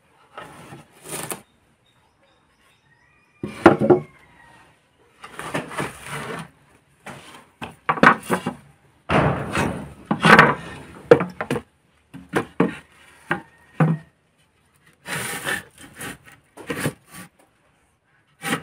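Wooden planks being slid and dragged across the rim of a metal basin and against each other, in a run of irregular scrapes with a few short knocks.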